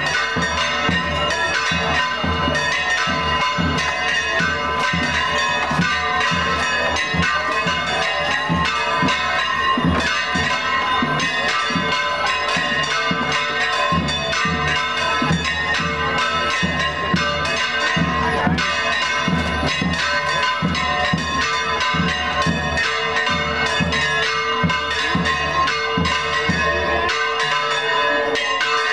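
Church bells ringing a rapid, continuous peal, struck several times a second with their tones ringing on.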